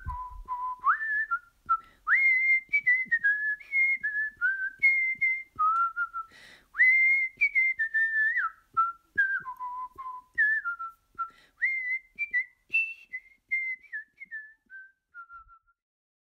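A person whistling a melody by mouth: one clear tone stepping up and down from note to note. It grows fainter over the last few seconds and stops just before the end.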